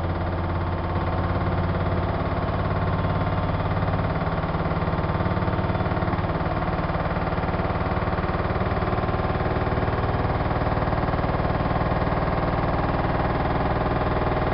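Siemens iQ front-loading washing machine spinning at high speed: a steady motor whine with a hum under it. It gets a little louder around the start, and the low hum shifts about four seconds in, then holds steady.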